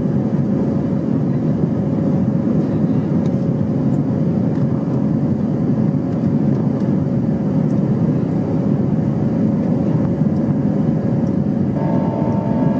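Steady cabin noise of an Airbus A320 in its climb, heard from a window seat over the wing: the engines' and airflow's even rumble with a faint steady hum. A higher steady tone joins near the end.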